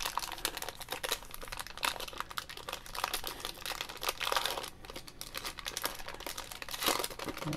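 Foil-lined trading card pack wrapper crinkling and tearing as it is pulled open by hand, an irregular run of crackles.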